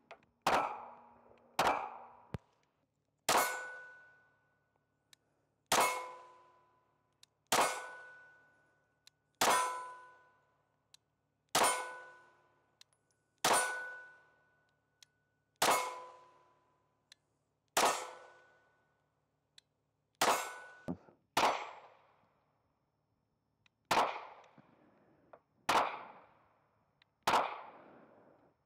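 Ruger LCP Max .380 ACP pocket pistol firing about fifteen single shots, roughly one every two seconds. Most shots are followed by the ringing of a hit steel target, which fades over about a second; the last few shots near the end ring less.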